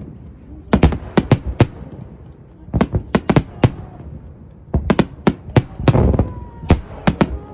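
Fireworks bursting overhead: sharp bangs come in quick groups of three or four, a new group every second or two, with a denser run of bangs about six seconds in.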